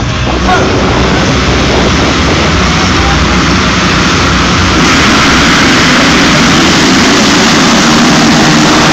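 A full field of motocross bikes revving hard at the start and pulling away together in a pack, a dense, loud engine noise that gets louder about halfway through.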